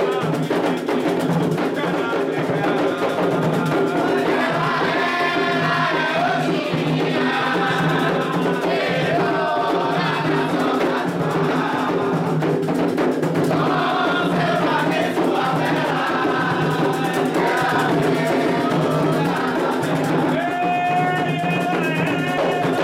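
Candomblé ritual music: atabaque hand drums beating with a group of voices singing a chant for Oxum.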